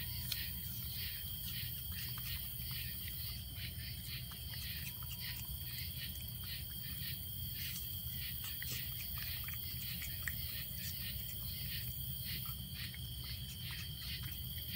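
Night insects chirping in a steady chorus of evenly repeated high pulses, with the soft chewing of a raccoon eating a piece of apple and a few sharp clicks.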